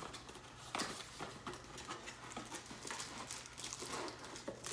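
Light handling sounds from the power strip's packaging: scattered small taps and clicks, faint and irregular.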